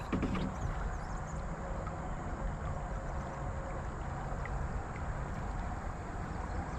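Kayak drifting on a calm river, soft water sounds against the hull over a low steady rumble, with a few faint ticks.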